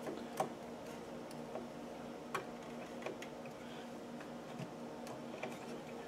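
Faint, scattered plastic clicks and taps, about five of them at uneven spacing, as a G.Skill Ripjaws V DDR4 memory stick is handled and lined up with a motherboard DIMM slot and its latch clips.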